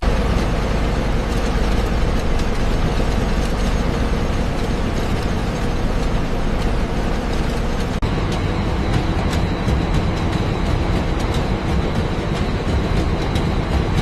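Heavy industrial machinery running with a steady low rumble. About eight seconds in the sound changes and a thin steady high whine joins it.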